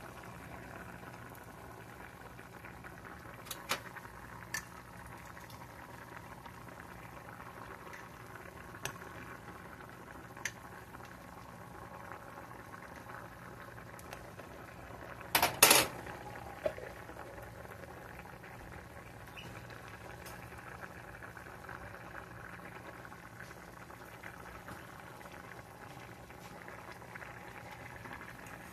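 A saucepan of green beans boiling hard on an electric stove, a steady bubbling. A few light clicks early on, and near the middle a sharp double clink of a fork against the pan, the loudest sound.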